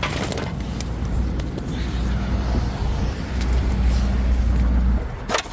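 A motor vehicle's engine running steadily with a low hum, which drops away about five seconds in.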